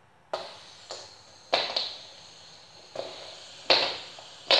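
Fidget spinners being flicked by finger on a wooden table: six sharp, irregularly spaced flicks. Each is followed by a short, fading whir from the spinner's bearing.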